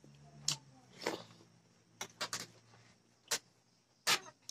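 Close-up eating sounds of rice being eaten by hand from a steel plate: about seven short, sharp clicks and smacks at irregular gaps.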